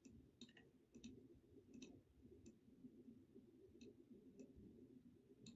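Faint computer mouse clicks, about eight short sharp ones at irregular intervals, over a low, quiet background hiss.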